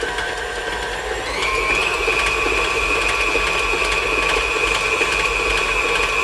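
KitchenAid tilt-head stand mixer running steadily as it beats royal icing in its steel bowl, its motor whine rising in pitch and growing a little louder just over a second in as the speed is turned up, then holding at the higher speed.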